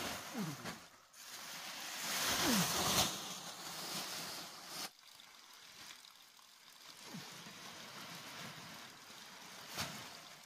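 Plastic sheeting rustling and crackling as it is pulled off bamboo hoops and bunched up by hand, loudest a couple of seconds in and quieter from about halfway, with a brief sharp knock near the end.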